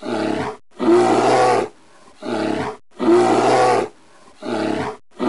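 A short clip of a drawn-out, roar-like cry played as a loop: a call of about a second, then a shorter one of about half a second, the pair repeating identically about every two seconds.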